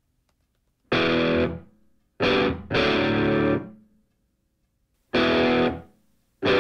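Background music: distorted electric guitar chords, each struck and left to ring out, with stretches of silence between them, four in all.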